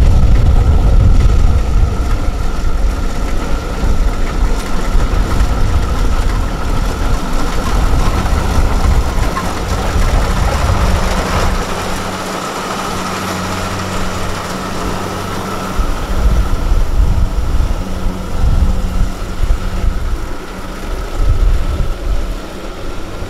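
Small farm tractor's engine running steadily, with a constant whine and a heavy low rumble that swells and eases.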